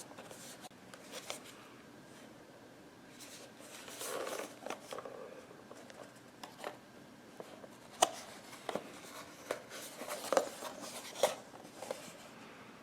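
A small cardboard product box being handled and turned over: soft scraping and rubbing, then a string of light taps and clicks, the sharpest about two thirds of the way through.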